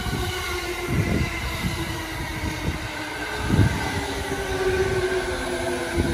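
E217 series electric train rolling slowly past, its running gear and motors giving a steady hum with several held tones. Three evenly spaced low thumps come from the wheels.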